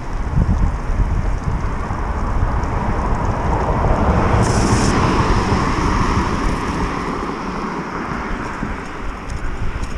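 Wind buffeting the microphone during a bicycle ride through city streets, over traffic noise that swells to a peak around the middle and then fades, with a short higher hiss about four and a half seconds in.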